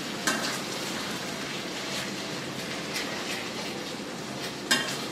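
Dak-galbi sauce and udon noodles sizzling in a stainless steel pot while a cooking utensil stirs them, knocking against the pot a few times with the loudest knock near the end.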